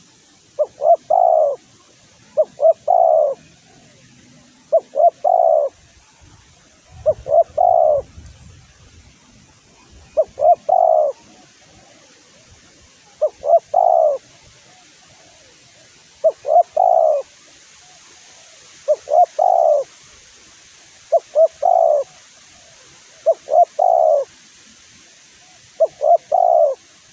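Spotted dove (tekukur) cooing: a three-part 'kru-kru-krooo' phrase repeated about eleven times, roughly one every two and a half seconds. This is the rival-provoking call that keepers use as a lure for other spotted doves.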